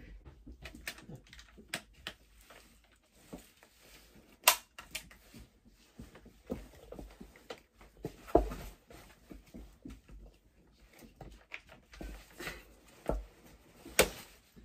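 A Silver Cross Clic compact stroller's frame being unfolded slowly by hand for the first time: scattered clicks, rattles and knocks from its joints and latches, with sharper clacks about four and eight seconds in and near the end.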